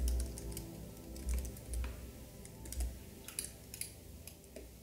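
Typing on a computer keyboard: irregular clusters of short keystroke clicks.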